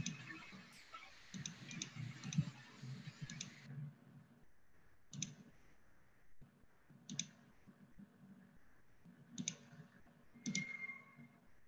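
Computer mouse clicks picked up by a video-call microphone: a few quick clicks over a short burst of hiss at the start, then single clicks about every two seconds, with faint low background noise.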